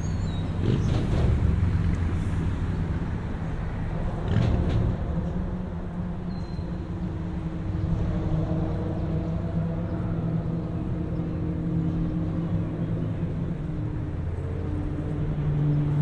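Traffic crossing a steel truss bridge overhead: a steady low rumble with the hum of passing vehicle engines, and two louder knocks about one and four and a half seconds in.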